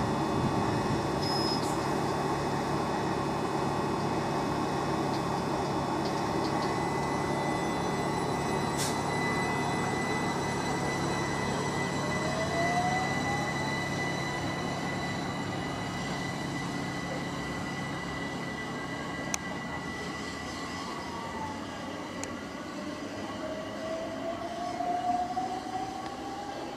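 Southeastern Class 376 Electrostar electric multiple unit pulling out of the platform and running away, its rumble slowly fading, with a rising whine from the drive around the middle. Near the end a second rising whine and a brief swell come as a Networker electric unit approaches.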